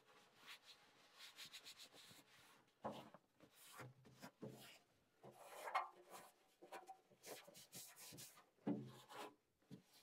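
Faint rubbing, scraping and scattered light knocks of hands and tools working inside a gas furnace cabinet as it is cleaned, irregular and with no steady machine sound.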